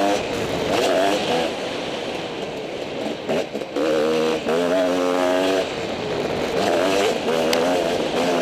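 Motocross dirt bike engine revving hard in repeated surges as the bike is ridden around the track. The pitch climbs through each surge and drops back between them as the rider shifts and rolls off the throttle.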